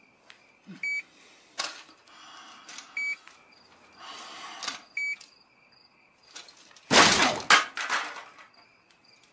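Ceiling smoke detector giving short high chirps, three of them about two seconds apart, then several loud whacks as a long pole strikes it about seven seconds in.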